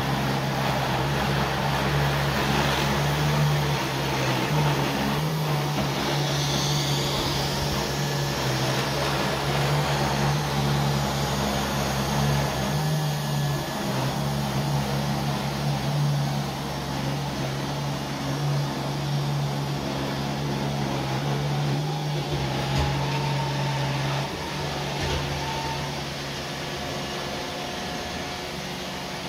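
Robot vacuum cleaners running: a steady hum of suction motors and brushes, from a Neato D7 working across a rug and a Samsung POWERbot VR9300. It gets slightly quieter in the last few seconds.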